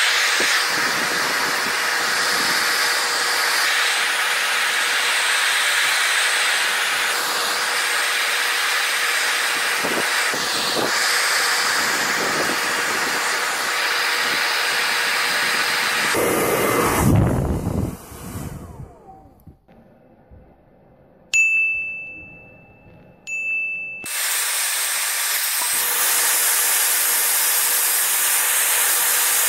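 Hair dryer blowing at close range on a calculator: a steady rushing of air with a faint hum. About two-thirds of the way through it cuts off and its motor winds down with a falling tone. Two ringing dings follow a couple of seconds apart, then the dryer starts blowing again.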